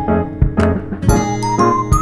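Light background music with a steady beat, a held high melody line and bell-like tinkling notes.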